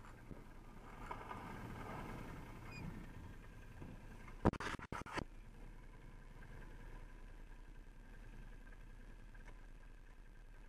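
Faint, muffled ATV engines running at low revs. A brief cluster of sharp knocks comes about four and a half seconds in.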